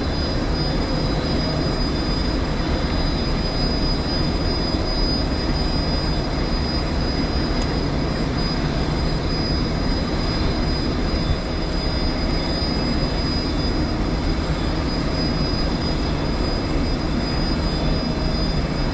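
Boat's outboard engine running steadily: an even low drone under a constant rush of wind and water, with a thin steady high whine above it.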